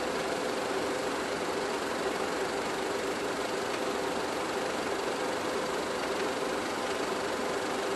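Steady mechanical drone: an even hiss with a constant low hum, unchanging throughout.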